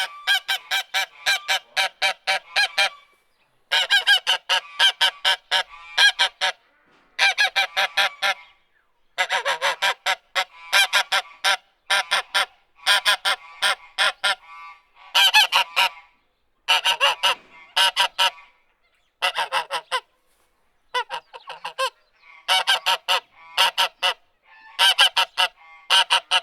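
Geese honking: rapid runs of short, harsh honks, several a second, in bouts of one to three seconds with brief pauses between.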